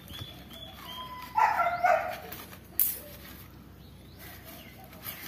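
Two quick dog barks about a second and a half in, followed by a single sharp click.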